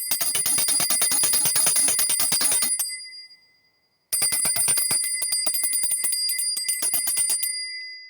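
A high-pitched handbell shaken hard, its clapper striking many times a second, in two rings of about three seconds each with a short pause between. After each ring the bell's tone hangs on and fades away.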